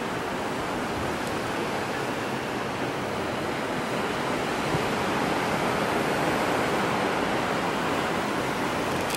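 Ocean surf breaking along the beach: a steady, even wash of waves.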